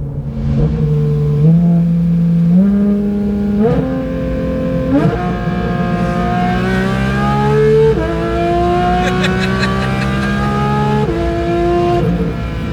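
Porsche 911 GT3's naturally aspirated flat-six engine accelerating hard through the gears. The pitch climbs within each gear and drops at each upshift, twice clearly in the second half.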